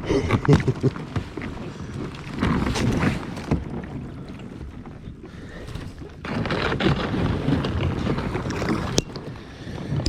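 Native Watercraft pedal-drive kayak's hull breaking through ice, with irregular crunching and scraping in bursts. It eases off for a couple of seconds in the middle and picks up again, with a sharp crack about a second before the end.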